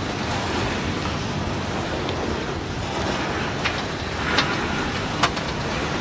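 Freight train covered hopper cars rolling past on the rails, a steady running noise of wheels on track, with a few sharp clanks in the second half.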